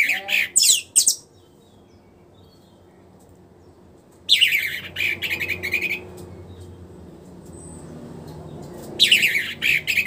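Orange-headed thrush (anis merah) singing in three short bursts of rapid, high warbling notes: at the start, about four seconds in and about nine seconds in. It is a bird just past its moult coming back into full song.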